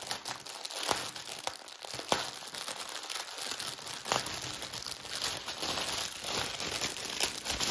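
Small plastic bags of diamond painting drills crinkling as they are handled and sorted, with a few sharp clicks among the rustle.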